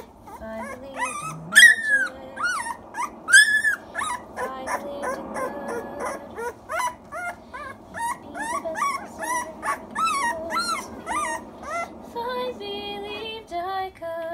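Rotterman (Rottweiler–Doberman mix) puppy crying: a quick run of high yelps and whines, several a second, protesting being held on its back. A few steady held tones of background music come in near the end.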